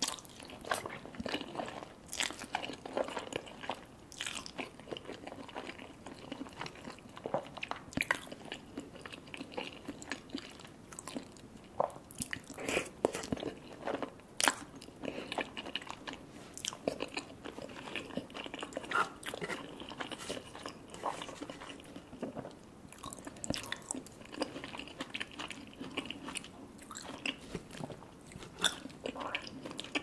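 Eating cheesy poutine (gravy-soaked fries with melted cheese) off a fork: chewing and wet mouth sounds, with many irregular small clicks.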